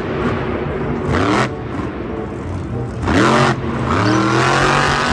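Monster truck's supercharged V8 revving hard in repeated blips, the pitch climbing with each one. It is loudest about three seconds in.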